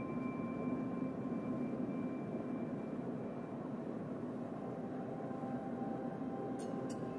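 Airbus A320 cabin noise in cruise: the steady rumble and hiss of the engines and airflow as heard inside the passenger cabin.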